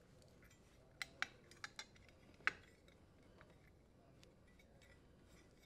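Five light clicks as plastic wire nuts and wires are handled at a dishwasher's electrical terminal box, between about one and two and a half seconds in, the last the loudest; otherwise near silence.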